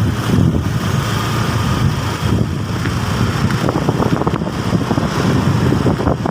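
Bus engine running with a low, steady rumble, with wind buffeting the microphone; no horn melody sounds.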